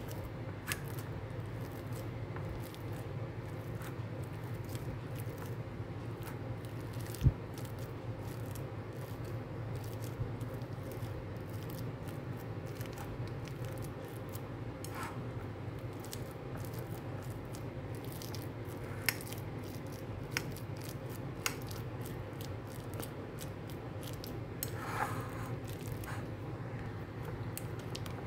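A metal fork mashing peeled bananas in a bowl: soft squishing and scraping, with frequent small clicks of the tines against the bowl, the sharpest about seven seconds in. A steady low hum runs underneath.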